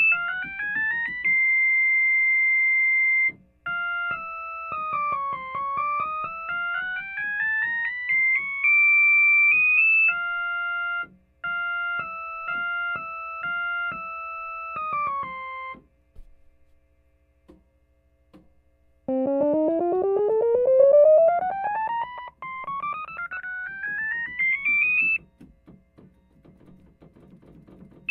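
1957 Lowrey Holiday LS vacuum-tube organ on the upper manual's Flute 4' stop, playing single-note scales up and down in a clean, flute-like tone, with most notes sounding together with their octave. It pauses about halfway, then plays a long run climbing from low to high. Faint key clicks and a steady low hum lie underneath.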